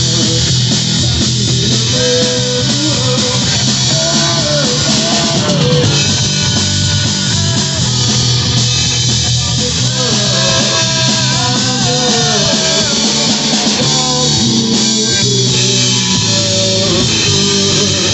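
A live rock band playing loud: electric guitar and bass over a drum kit, with a melody line that bends and slides in pitch.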